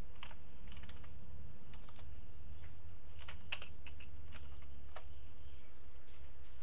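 Computer keyboard keys clicking in irregular short runs, thickest in the middle, over a steady low hum.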